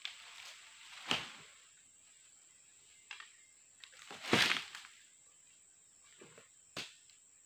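A blade chopping through cut oil palm fronds: a few separate sharp strokes with a leafy rustle, about a second in, again near three seconds, loudest and longest about four seconds in, and once more near the end.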